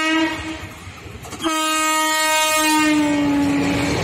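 An Indian Railways WAP-4 electric locomotive sounds its horn as it approaches at speed. The tail of one blast ends about half a second in, and a long blast starts about a second and a half in, dropping slightly in pitch toward its end. The train's rumble runs underneath.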